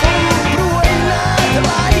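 Khmer pop song: a man singing over a band with a steady drum beat, bass and guitar.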